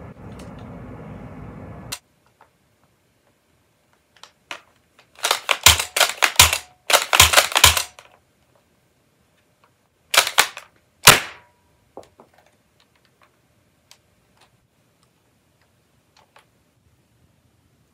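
Plastic clicks and clacks of Nerf pistols being reloaded and primed: a dense run of rapid sharp clicks from about five to eight seconds in, then two louder sharp clacks around ten and eleven seconds, and faint scattered ticks after. A steady low hum stops abruptly about two seconds in.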